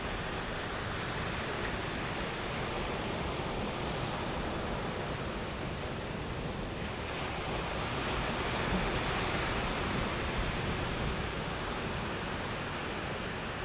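Surf breaking and washing up the beach as a steady rush of noise, which grows a little louder for a few seconds about halfway through.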